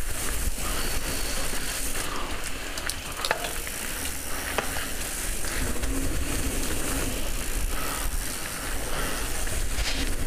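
Mountain bike rolling fast down a dirt singletrack: tyres crunching and crackling over loose dirt and gravel, with a couple of sharp clicks from the bike, over a steady low rumble of wind on the microphone.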